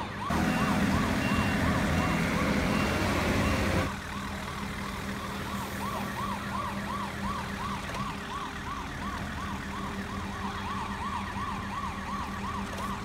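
Electronic siren of a Bruder toy fire engine's light-and-sound module, wailing up and down quickly and evenly over and over, with a steady low hum beneath. A louder rushing noise sits over the first few seconds and stops abruptly.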